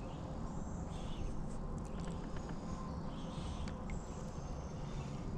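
Insects buzzing in the bankside trees in short, repeated bursts, over a steady low rumble.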